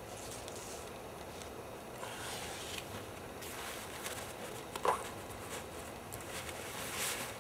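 Handling noise from hammock suspension gear: nylon webbing and the hammock bundle rustling and scraping, in irregular short bursts, with one sharper, louder sound about five seconds in.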